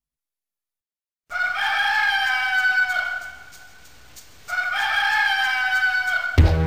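Two recorded rooster crows, each about two seconds long and falling in pitch at the end, the first starting about a second in, opening a wrestling entrance theme; a drum kit comes in at the very end.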